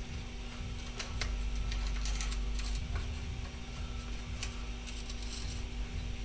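Scattered faint clicks and light rattles of a 4 mm hex key turning the bolt that fastens a plastic chainguide's upper guide, with the guide and bike chain being handled, over a steady low hum.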